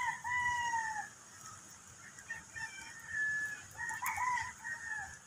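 Rooster crowing: one long crow near the start, fainter crows in the middle, and another crow about four seconds in.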